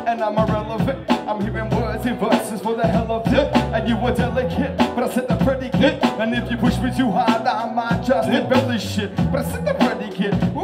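Live hip hop band music: a heavy bass line of repeated notes under a steady drum beat, with a pitched melody line above them.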